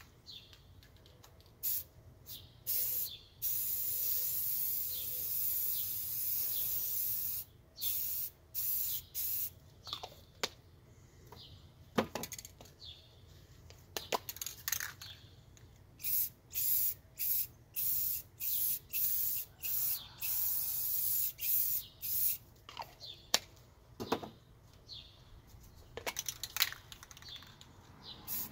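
Aerosol spray paint cans hissing in many short bursts and a few longer sprays lasting several seconds, with a few sharp knocks in between.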